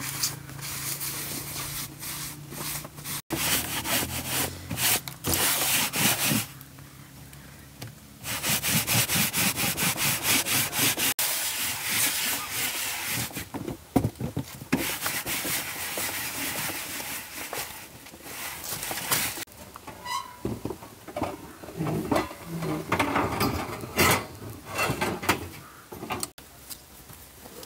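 A cloth or sponge rubbed briskly over the skin of a large squash, in runs of quick back-and-forth strokes with short pauses between them.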